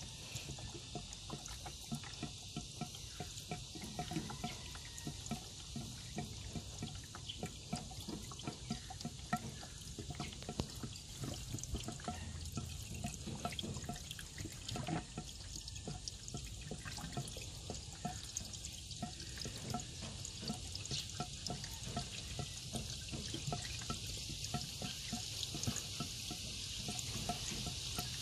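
Pink radiator coolant being poured from a 10-litre jug into a car's radiator while refilling it after a flush: a continuous pouring trickle with many small irregular gurgles.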